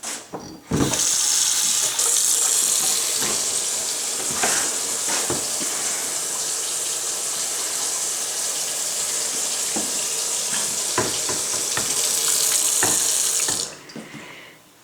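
Kitchen sink faucet turned on about a second in, water running in a steady stream into the sink, then shut off near the end.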